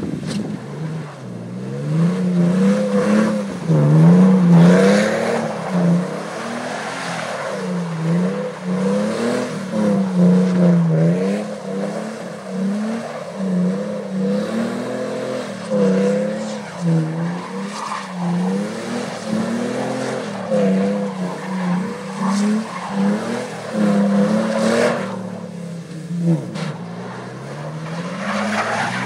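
Pickup truck engine revving up and down over and over, with tyres spinning and sliding on snow-covered ice.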